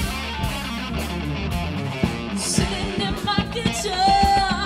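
Live rock band playing, with electric guitars, bass and a drum kit keeping a steady beat. A woman's singing voice comes in about three seconds in and holds one long note near the end.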